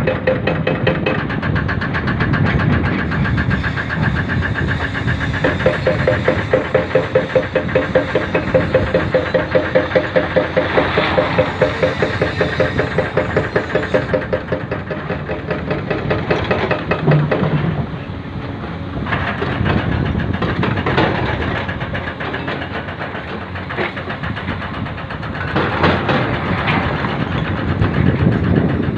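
Excavator's diesel engine running steadily close by, with a regular throb through the first half that eases after about halfway.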